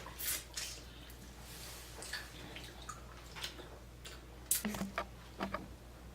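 Wet mouth sounds of eating seafood: scattered smacks and sucking clicks, a few short ones spread over several seconds, with a small cluster near the end.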